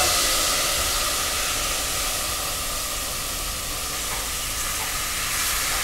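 Pre-cooked butternut squash cubes tipped into a pot of hot coconut oil and onions, setting off a steady sizzle with a hiss of steam.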